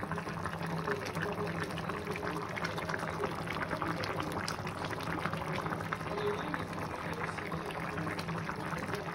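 A large aluminium pot of chicken biriyani (basmati rice and chicken in spiced liquid) at a hard boil: a dense, steady bubbling and popping.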